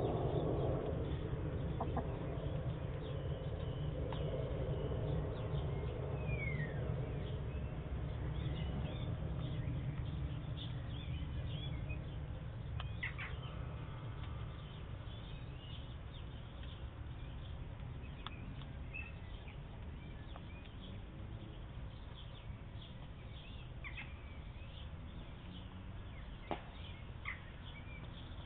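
Domestic hens clucking quietly now and then as they feed, with a few short sharp taps, over a steady low rumble.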